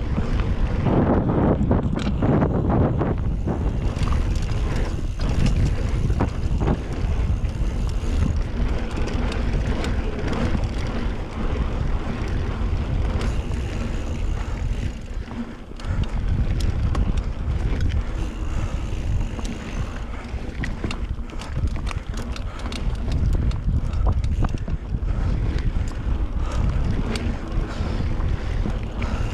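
Wind buffeting a GoPro's microphone on a mountain bike ridden over dirt singletrack, with tyre noise on the dirt and frequent clicks and rattles from the bike over bumps. The noise dips briefly about halfway through.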